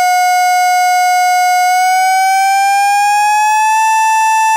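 A single held electronic tone from an Amiga demo, buzzy with many overtones, sounding over a test-card screen. It holds steady, then about two seconds in slides smoothly up a little in pitch and holds again at the higher note.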